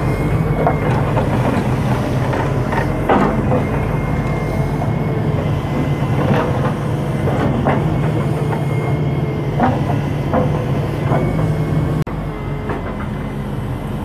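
Wheeled excavator's diesel engine running steadily under load while it digs, with irregular clanks and knocks from the bucket and soil.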